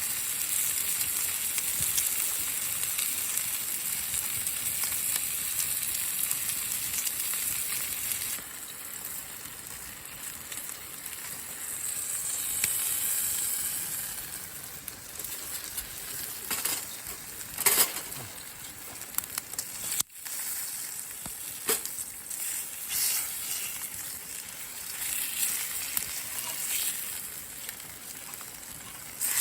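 Food sizzling and frying in a pan over a campfire, a steady hiss with a few sharp pops.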